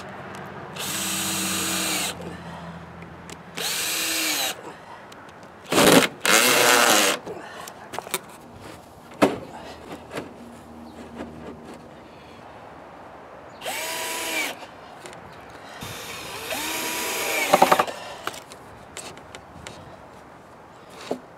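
Cordless drill driving wood screws through a plywood side panel into a board, in about five short runs of a second or two each, the motor whining up in pitch as it starts and winding down as it stops.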